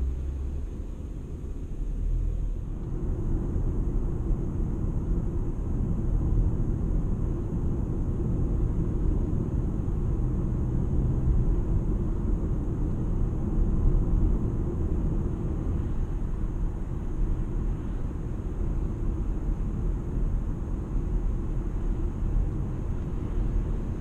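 Toyota Camry Hybrid on the move: a steady low rumble of road and tyre noise that swells slightly about two and a half seconds in and then holds.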